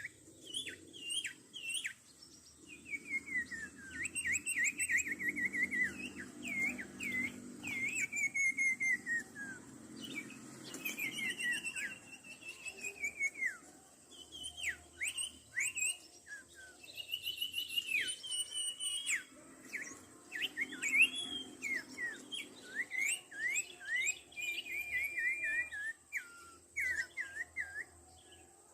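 Common iora (sirtu) calling: a long run of quick whistled notes and chirps, many sliding down in pitch, repeated almost without pause.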